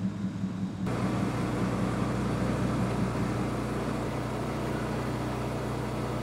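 Car engine idling: a steady low hum with hiss that starts suddenly about a second in.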